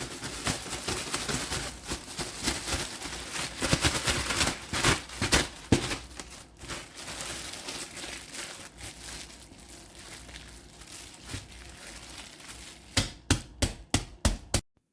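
Rustling and crinkling while bread dough is handled and rolled, loud at first and fading to a softer crackle, then about six sharp clicks close together near the end.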